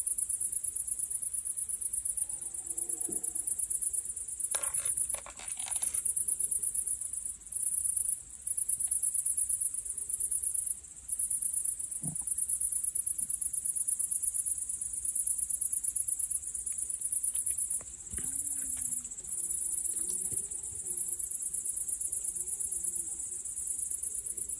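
Night insects, crickets, trilling steadily and high with short breaks. Faint distant deer bellowing in the autumn rut comes through underneath, briefly about three seconds in and again in a few low, drawn-out calls past the middle.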